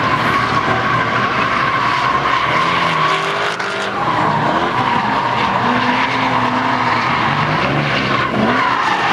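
Drift cars sliding: a continuous tire squeal with engines revving up and down underneath, the pitch rising and falling as the drivers work the throttle.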